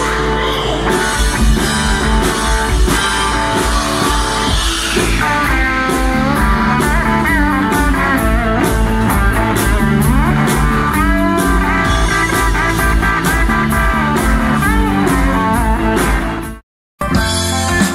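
Live rock-blues band playing an instrumental passage led by guitar, with notes sliding up and down in pitch over the band's steady backing. Near the end the sound cuts out suddenly for a moment, then music starts again.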